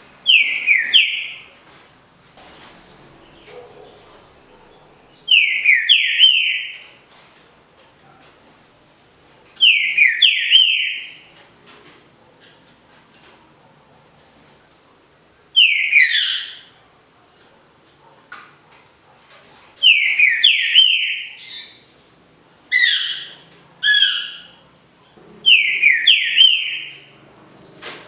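Green-winged saltator (trinca-ferro) singing its smooth 'canto liso' song: short phrases of clear whistled notes sliding downward, repeated every few seconds with short pauses between.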